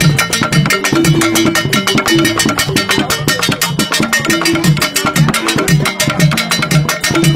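Birifor gyil xylophones, wooden keys struck with mallets, playing a fast repeating pattern of short, ringing notes over a low running figure. The music is continuous and dense with percussive attacks.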